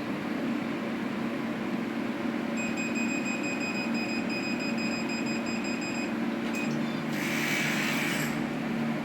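Machine with a freshly repaired control board running on test. A steady low hum runs throughout, a long electronic beep of about three and a half seconds sounds from a few seconds in, then a click and a brief hiss of about a second near the end.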